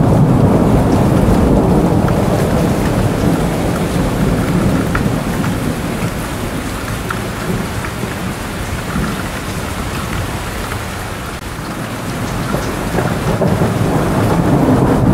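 Steady rain falling, with a long rolling rumble of thunder. The rumble eases off a little past the middle and swells again near the end.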